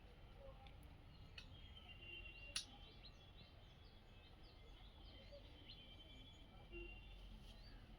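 Faint chirping of small birds, many quick short calls, over a low rumble; a single sharp click about two and a half seconds in.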